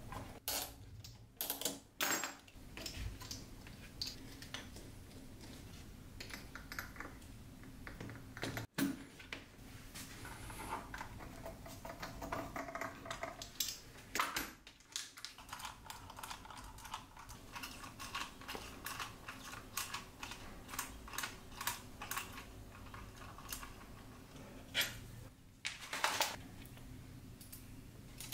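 Hand assembly of a 3D-printed RC car chassis: irregular light clicks, taps and clatter as plastic parts and small metal hardware are handled, fitted and screwed together with a hex driver.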